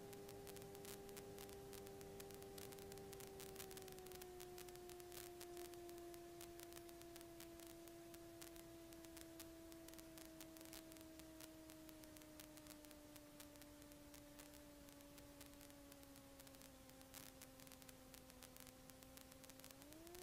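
Faint electrical whine in the aircraft's intercom recording: a steady tone with one overtone. It sinks slowly in pitch through the landing rollout and swings back up sharply near the end, following changes in engine speed.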